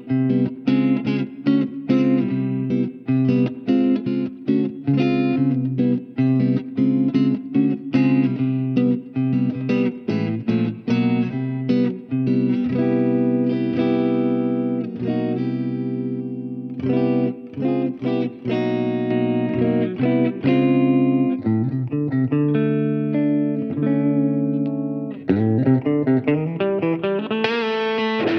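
Ibanez S320 electric guitar fitted with DiMarzio pickups, played through an amp for a tone demo. Notes are picked in quick, steady runs over ringing chords, and the tone turns brighter near the end.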